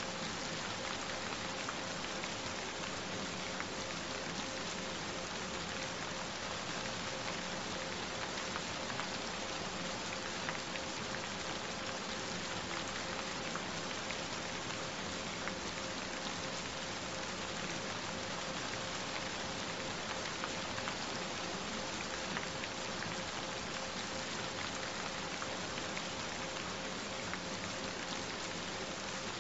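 Steady rain, an even hiss of pattering drops, with a faint steady pure tone held at one pitch underneath.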